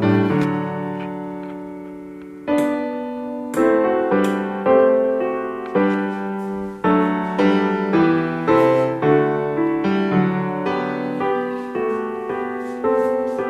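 Background piano music: a slow melody of struck notes and chords, each ringing and fading before the next.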